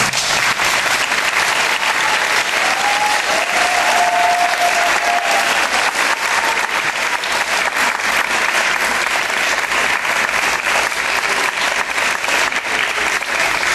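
Audience applauding, many hands clapping at once. The applause breaks out all together and holds steady.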